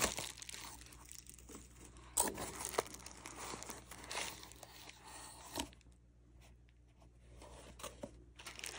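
Packing material being handled as a small parcel is unwrapped: bubble wrap and paper crinkling and tearing against a cardboard box, with sharp crackles at the start, about two seconds in and about five and a half seconds in, then quieter handling.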